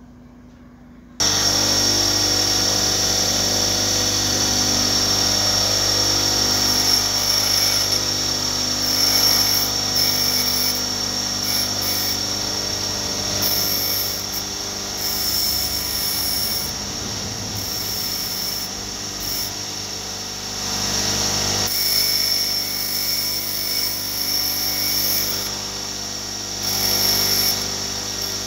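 Bench grinder running with a steady hum and high whine, starting abruptly about a second in, while a thin steel wire from a clothespin spring is held against the grinding wheel, rasping as its tip is ground to a hook point.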